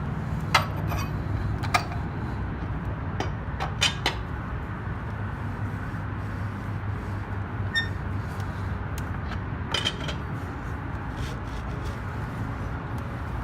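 Lug wrench clinking on a car wheel's lug nuts as they are loosened by hand: scattered sharp metal clicks and knocks, a few at a time, over a steady low hum.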